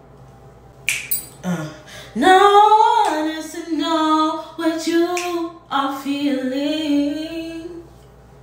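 A woman singing unaccompanied, holding long notes that slide in pitch, after two sharp clicks about a second in.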